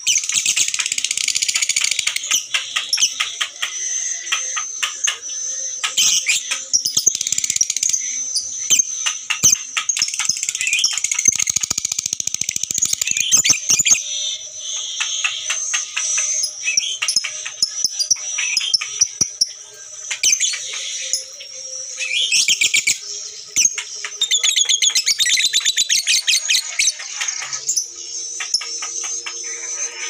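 Fischer's lovebirds chattering in long, high-pitched runs of rapid notes, the 'ngekek' song, with only brief breaks.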